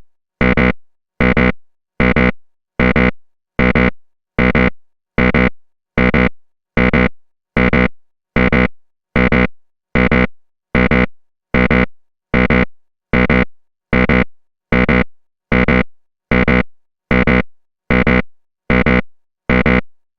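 Wrong-answer buzzer sound effect: a short, harsh buzz that cuts in sharply and fades, repeated in a loop about every 0.8 seconds.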